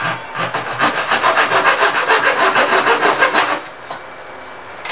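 A hand tool worked in quick back-and-forth strokes against the edge of a cast acrylic sheet, giving a rapid, even rasping that stops about three and a half seconds in.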